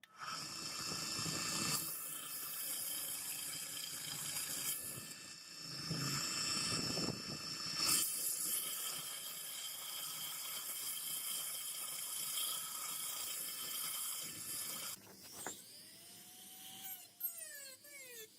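A small high-speed electric rotary tool running steadily with a high-pitched whine, working against metal. About fifteen seconds in it is switched off and winds down, its whine falling in pitch.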